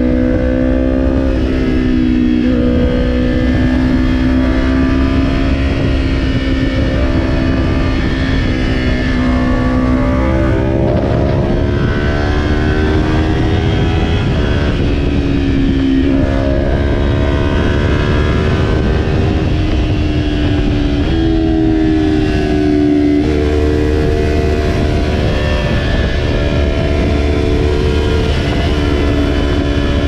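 2020 Kawasaki Ninja 400's parallel-twin engine running at highway speed, its pitch shifting up and down a few times with the throttle, under heavy wind rush on the microphone.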